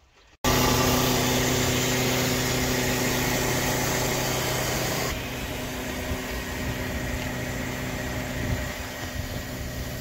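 Concrete mixer lorry's diesel engine running steadily, turning the drum as concrete is poured. The hum starts abruptly just after the start and turns slightly quieter and duller about halfway through.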